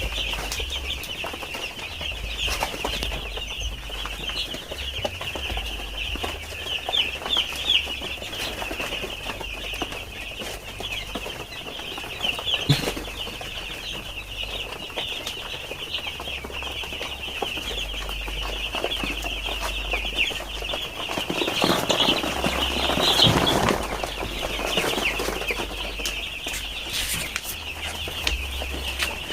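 A flock of some three hundred five-day-old broiler chicks peeping continuously, a dense chorus of high cheeps, with a louder stretch of rustling about three quarters of the way through.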